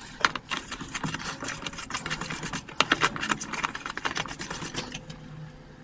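Small stiff brush scrubbing a ball bearing from a lathe spindle in a tub of paraffin: rapid scratchy strokes with light clicks of metal, easing off near the end.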